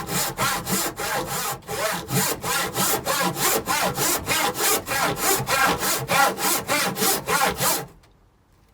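Handsaw ripping a length of timber along the grain, in quick even strokes about four a second, stopping abruptly near the end.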